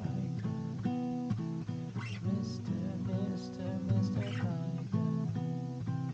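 Acoustic guitar strumming chords, an instrumental stretch between sung lines.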